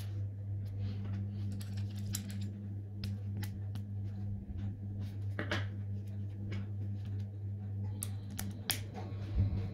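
Light, irregular clicks and taps of 3D-printed plastic bearing race rings and their steel wire races being handled and fitted together, over a steady low hum.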